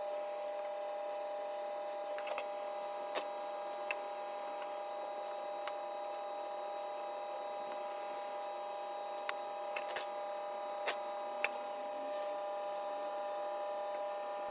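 Steady hum of a kitchen appliance's motor or fan, with about ten light clicks and taps scattered over it as pastry rounds are brushed with egg and pressed down on a metal baking tray.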